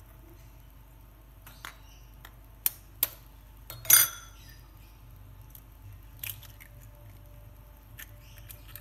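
A few sharp taps and clinks on a steel mixing bowl of marinating chicken as eggs are cracked into it. The loudest knock comes about four seconds in, with smaller taps scattered before and after it.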